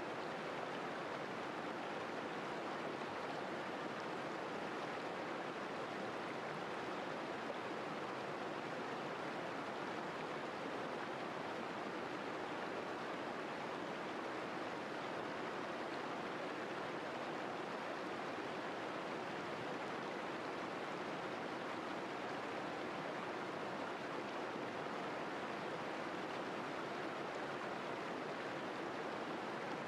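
Shallow rocky river rushing and splashing over and between boulders in small riffles, a steady even rush of water.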